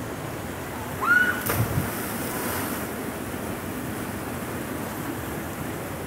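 Steady rush of a waterfall cascade, with a short high yell about a second in and, just after it, the splash of a person diving into the pool, its spray hissing for about a second.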